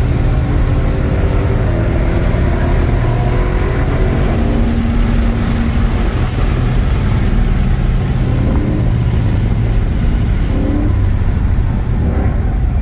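Ford Mustang V8 engine and road noise heard from inside the cabin at track speed, the engine note shifting in pitch as the car works through the corners. Near the end the wind and road hiss drops away as the car slows.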